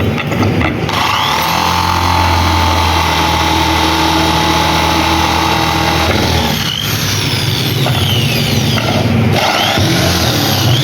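Washing machine motor running with a steady hum that starts about a second in and changes in tone around six seconds in.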